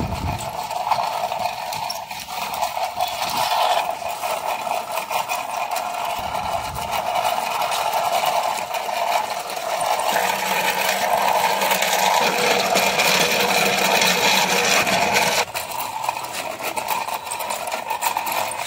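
Small tin-and-metal toy auto rickshaw clattering and whirring steadily, a fast mechanical rattle. It grows louder about ten seconds in and drops back near the end.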